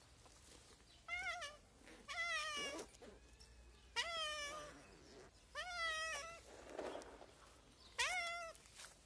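A hungry stray cat meowing for food: five separate meows, about one every second or two.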